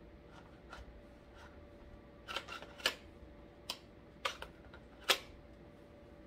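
Sharp plastic clicks and knocks, about seven in a few seconds with the loudest near the end, from handling a cordless mini chainsaw and its battery pack.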